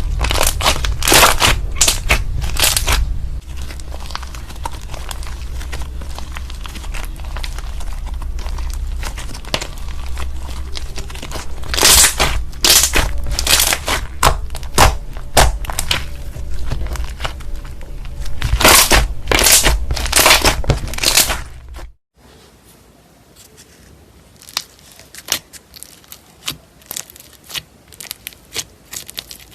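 Slime being worked by hand, squeezed and stretched, giving bursts of sticky crackling and popping. About two-thirds of the way through it cuts to a quieter stretch of scattered small pops.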